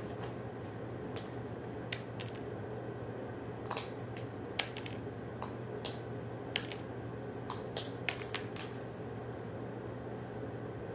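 A dozen or so light clinks and taps, several with a brief high ring, like small hard objects knocking against metal or glass, over a steady low hum.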